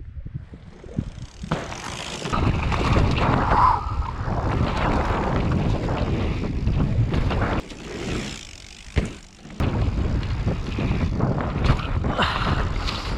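Mountain bike riding fast down a dirt trail: wind buffeting the microphone over tyre noise and the knocks and rattles of the bike on rough ground. The noise drops briefly about eight seconds in, with a sharp knock near nine seconds, then picks up again.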